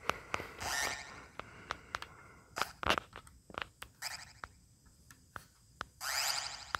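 Korg Monotron Delay analog synthesizer played on its ribbon keyboard: sharp clicks and short buzzy bleeps, then a longer buzzy tone about six seconds in that bends upward in pitch.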